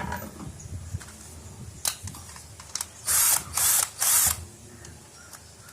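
Ratcheting mechanism of a right-angle screwdriver clicking, a few single clicks and then three quick rasping runs in the second half.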